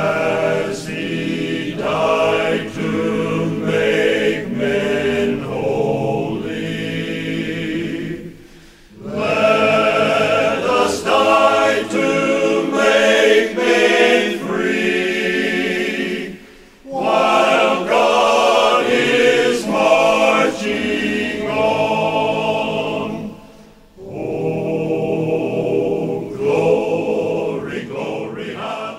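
Choir singing as a music soundtrack, in long sung phrases broken by short pauses about every eight seconds.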